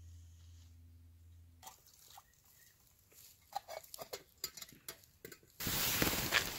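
A low steady hum that stops about a second and a half in, then scattered light clicks and ticks. Near the end, loud rustling of hammock quilt fabric handled right against the microphone.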